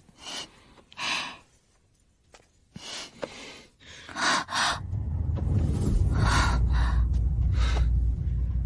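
A person gasping and breathing sharply in a series of short breaths. A low rumble builds underneath from about five seconds in.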